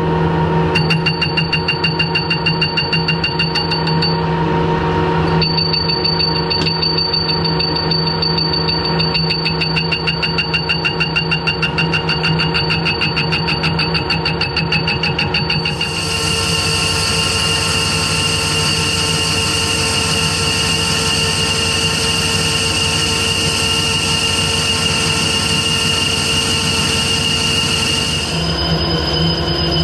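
Harrison lathe running under power, turning the diameter of a cast cylinder cover: a steady gear whine with a fast ticking. About halfway in a harsher hiss of the tool cutting joins, dropping away shortly before the end.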